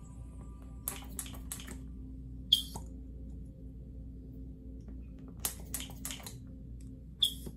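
Hand vacuum pump gun on plastic cupping cups: a quick run of four or five pump strokes drawing the air out of a cup, then a single sharp click as the gun comes off the cup's valve, the pattern heard twice.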